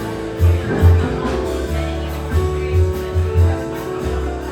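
Background music with a steady bass beat and guitar.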